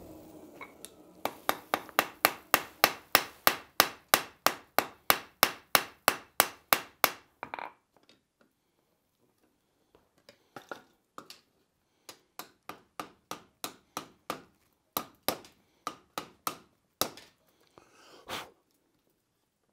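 Hand hammer striking hot steel on an anvil, forge-welding the junction of a three-legged stand: a fast, even run of about four blows a second, then after a pause a slower, uneven series of blows.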